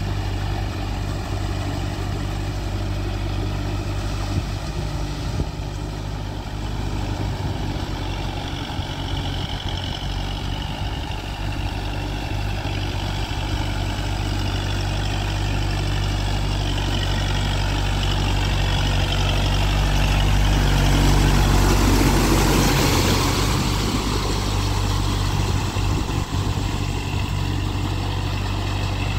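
Kubota MU4501 tractor's four-cylinder diesel engine running steadily under load while puddling a flooded rice paddy on cage wheels. It grows louder to a peak about three-quarters of the way through, then eases back.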